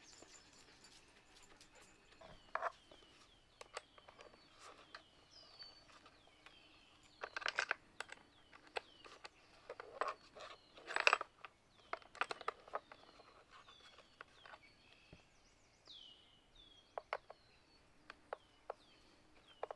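Metal clinks and plastic clicks from a Ryobi 40V cordless chainsaw being handled while a replacement chain is fitted onto its bar, in scattered rattles, loudest in two short clusters near the middle. Birds chirp throughout with short falling notes.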